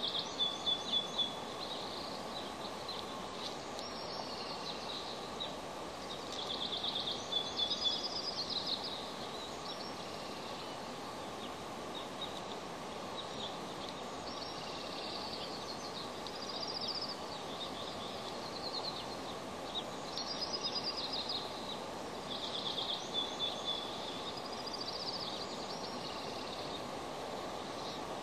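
Bald eagle calling in several short bouts of rapid, high-pitched chirping notes over a steady background hiss.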